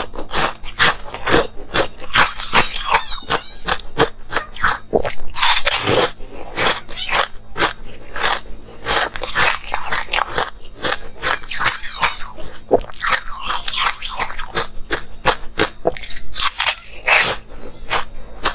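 Close-miked chewing of crunchy pink frozen ice: a fast, continuous run of crisp crunches, with a few heavier crunching bursts.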